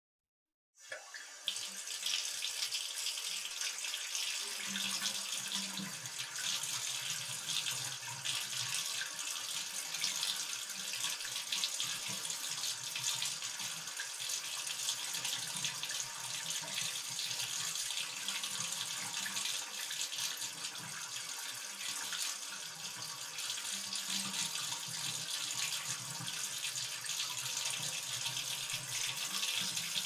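Bathtub faucet turned on about a second in, then running steadily, water pouring and splashing into the tub.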